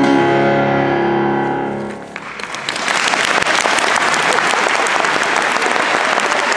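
A grand piano's final chord held and fading, released about two seconds in, then audience applause that builds quickly and carries on steadily.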